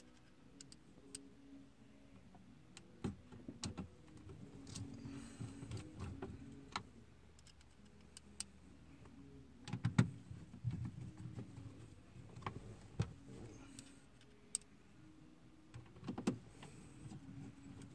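Hand Phillips screwdriver driving screws into a car dashboard's center stack: scattered small clicks and scrapes of metal on plastic, with a few sharper knocks, the loudest about ten and sixteen seconds in.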